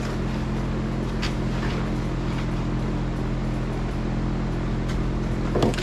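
Steady hum of a large shop drum fan running, with a few faint scrapes of a broom sweeping debris.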